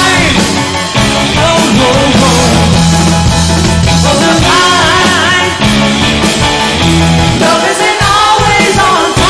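Rock band playing live, loud and continuous, with a singer's voice over the band.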